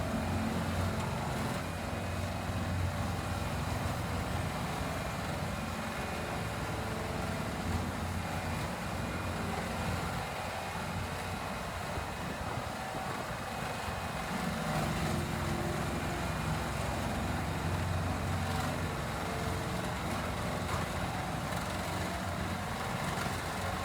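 Heavy wood chipper or grinder running steadily: an engine's low hum under a haze of machine noise, swelling and easing a few times, with no sharp cracks of wood.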